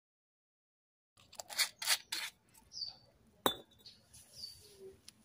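Silent for about the first second, then a handful of light clinks and taps of small hard objects, the sharpest about three and a half seconds in. Short high bird chirps come now and then.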